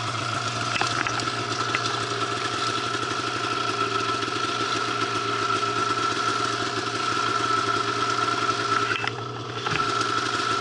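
Arctic Cat snowmobile engine idling steadily, with a steady high whine over its hum; the sound dips briefly about nine seconds in.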